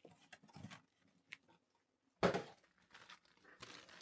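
Packaging of a miniature house kit being opened and handled: scattered crinkles and clicks, with one louder crinkling rustle a little over two seconds in.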